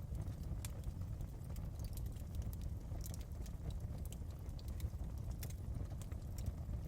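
Wood fire in a fireplace crackling: irregular sharp pops and snaps over a steady low rumble of the burning fire.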